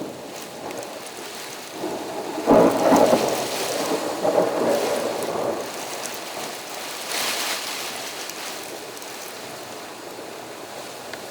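Steady rain during a thunderstorm, with a thunderclap about two and a half seconds in that rumbles on for a few seconds.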